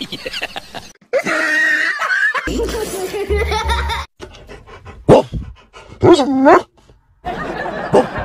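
A dog barking in quick repeated barks for about the first second, then laughter mixed with the vocal sounds of a Rottweiler in a car.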